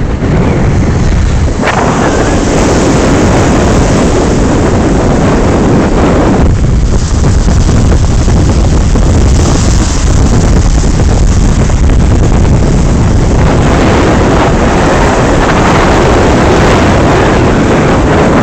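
Strong wind buffeting a phone's microphone over the noise of breaking waves; the gusts swell and ease, dropping off about six and a half seconds in and building again.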